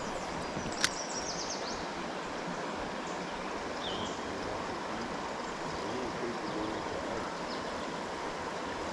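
Steady rush of a trout stream's flowing water, with a single sharp click about a second in.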